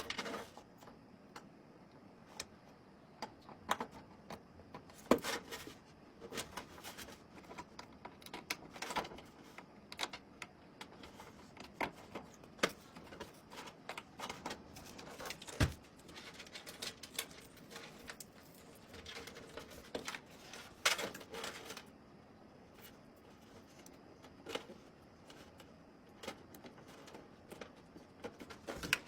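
Irregular clicks, taps and light knocks of hard plastic and metal computer parts being handled and fitted together, a few louder knocks among many softer clicks.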